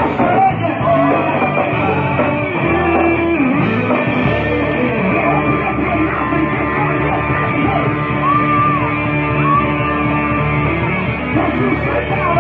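Live gospel band music played loud: a band with keyboard and guitar, with a singer's voice gliding over the held chords.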